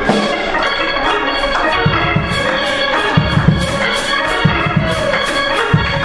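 Church music: organ chords held under drums, with bunched kick or tom hits and cymbal strikes coming in from about two seconds in.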